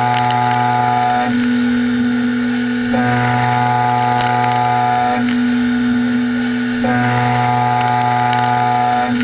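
A Sandvik CoroMill Plura solid carbide end mill in a CNC machining centre, side-milling a metal block on a WaveForm toolpath. It makes a steady pitched cutting whine with overtones, and the tone switches about every two seconds as the tool moves from one pass to the next. The pattern repeats roughly every four seconds.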